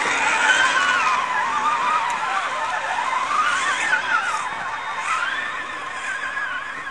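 Electric motor and gear whine of a scale RC crawler truck, its pitch rising and falling with the throttle as it climbs the dirt trail, fading over the last few seconds as the truck drives away.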